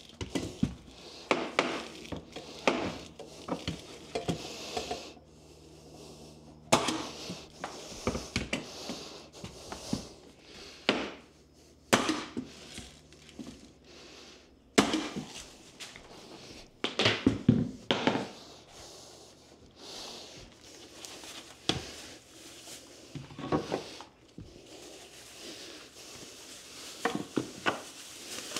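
Hardwood flooring being laid: sharp wooden knocks and clacks at irregular intervals as planks are set and fastened into place.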